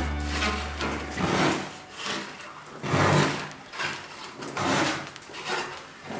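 Hand sanding along the wooden hull and spray rails of a cold-moulded boat: a series of rough rubbing strokes, about one a second.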